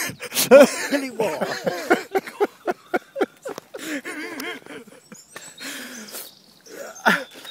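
A man laughing hard in quick repeated bursts, loudest in the first few seconds and dying down toward the end.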